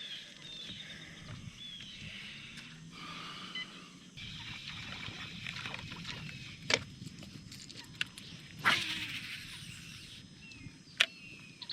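Birds calling with short chirps and whistles over open water, with a few sharp clicks and a brief hiss about nine seconds in.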